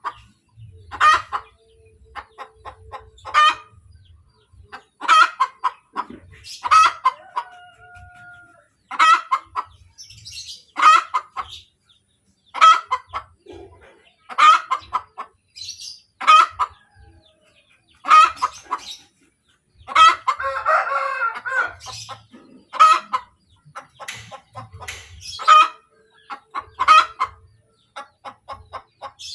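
Hen's egg-laying cackle: loud, sharp calls repeated about every two seconds, the song a hen sings just after laying an egg. About two-thirds of the way through comes one longer, rougher call.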